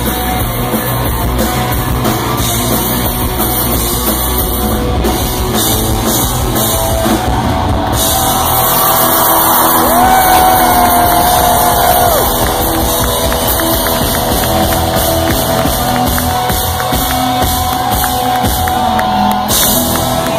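Live rock band with electric guitars, drums and a lead singer, playing loudly. A long held note comes about halfway through.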